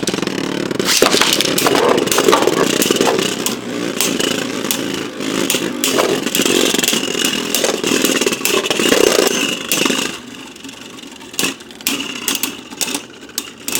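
Beyblade Burst spinning tops whirring and scraping around a plastic stadium, clashing with repeated sharp clacks. After about ten seconds the clatter gets quieter and sparser as the tops slow down.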